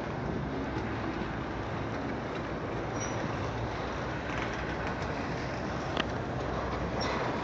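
BNSF double-stack intermodal freight train rolling past at close range: a steady rumble and clatter of well cars on the rails, with a single sharp click about six seconds in.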